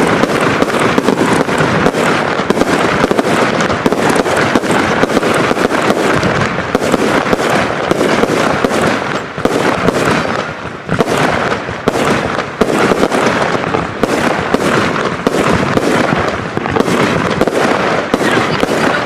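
Several consumer firework cakes firing together: a dense, unbroken run of rapid bangs and pops with no pause between shots.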